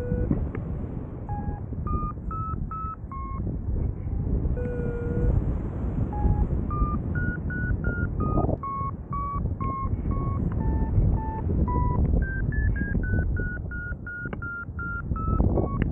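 Paragliding variometer beeping in short electronic tones, two or three a second, the pitch stepping up and down as the climb rate changes in lift. Steady wind rushing over the microphone underneath.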